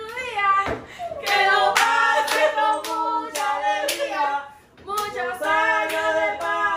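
Singing with hand claps about twice a second, the singing breaking off briefly a little past the middle.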